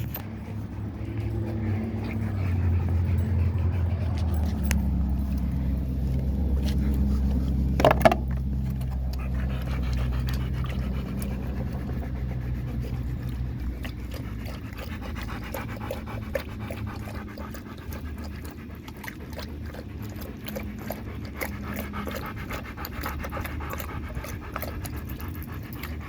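Dogs panting hard after a run, with a low rumble under the first half. A short rising whine comes about eight seconds in.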